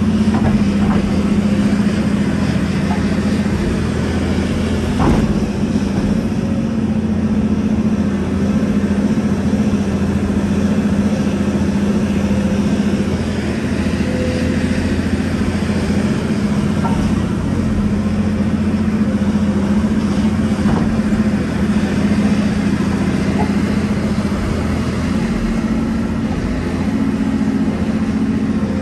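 Volvo EC700 excavator's diesel engine running steadily with a deep hum, heard from inside the cab as the machine works its hydraulics to swing from the truck back to the dig. A single sharp knock about five seconds in.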